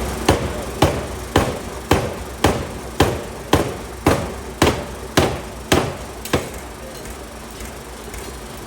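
A 750 kg pneumatic forging hammer striking a hot steel block in steady, even blows, about two a second, with a short ring after each. The blows stop about six seconds in, leaving the hammer's machinery running.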